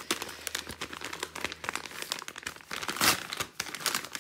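Yellow padded paper envelope crinkling and crackling as hands grip and work it open, with a louder rip about three seconds in.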